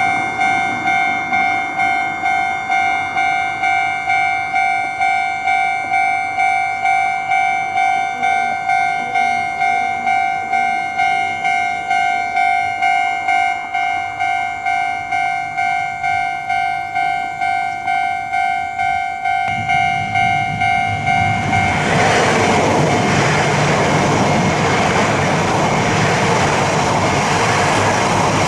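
Japanese level-crossing electronic warning bell ringing its steady 'kan-kan' ding about twice a second. About twenty seconds in a rumble builds, then a Shinkansen train rushes through the crossing, its loud passing noise drowning out the bell for the last several seconds.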